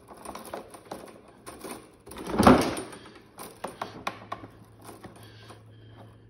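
Clicks and knocks of a Craftsman M215 mower's metal handle, bolt and plastic knob being handled and fitted together, with one louder thump about two and a half seconds in.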